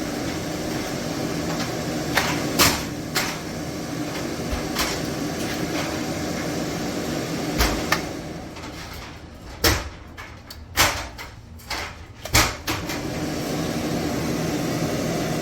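Kitchen vent hood fan running with a steady hum, which drops away for a few seconds past the middle and then comes back. Several sharp clicks or knocks over it, the loudest while the fan is quieter.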